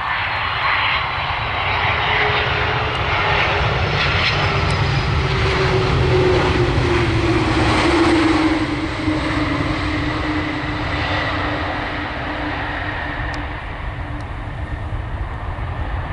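Airbus A310 airliner's twin jet engines and rushing air as it touches down and rolls out along the runway. The noise grows to its loudest about eight seconds in as the aircraft passes, with a tone that drops in pitch, then eases as it moves away.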